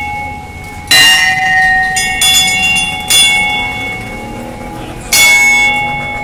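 Temple bell struck four times at uneven intervals, each stroke ringing out with clear tones that fade slowly.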